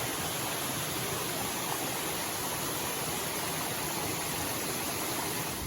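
Steady rush of a waterfall: an even hiss of falling water that cuts off suddenly at the end.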